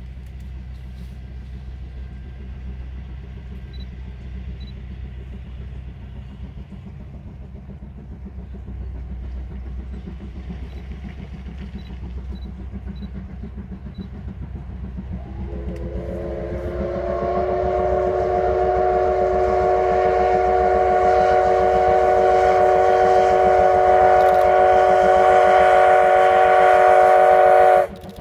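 Steam locomotive whistle sounding one long blast of about twelve seconds, its pitch sliding up briefly as it opens, then holding steady until it stops abruptly. Before it, a low rumble grows louder as the train approaches.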